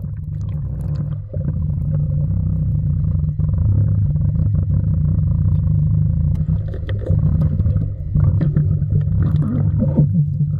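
Muffled low rumble of water heard through a submerged camera, with scattered small clicks and bubbling.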